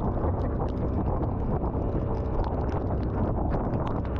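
Steady rush of wind on the microphone as a small open fibreglass boat runs through choppy sea in a heavy rainstorm, with many quick sharp ticks of rain and spray striking.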